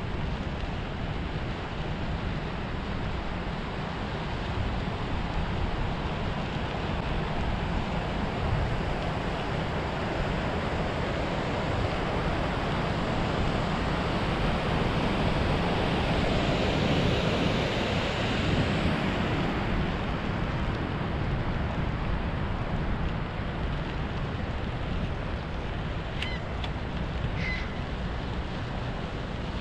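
Steady rushing of wind over a head-mounted action camera's microphone while cycling, swelling for a few seconds about midway. Two short high chirps near the end.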